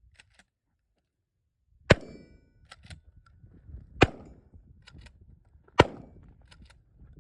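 Stevens 620A pump-action trench shotgun fired three times, about two seconds apart, with sharp reports and fainter clicks of the slide being worked between shots.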